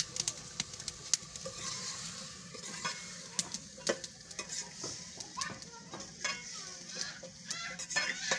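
Long metal spoon stirring and scraping in a steel cooking pot of rice and potatoes, with repeated sharp clinks against the pot's sides over a steady sizzle from the pot.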